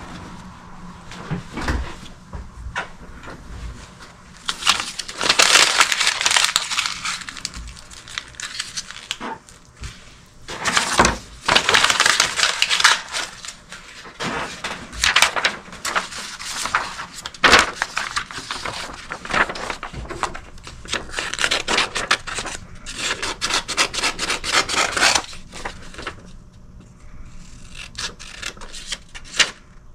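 Irregular crackling and rustling, as of something being rubbed, crumpled or crushed by hand, in uneven bursts of sharp clicks that grow loudest several times and thin out near the end.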